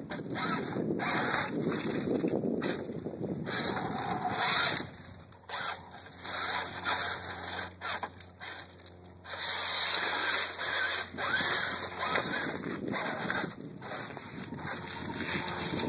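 Radio-controlled rock crawler climbing a boulder: its motor and drivetrain running in irregular bursts with short pauses, tires scraping on rock and crunching dry leaves.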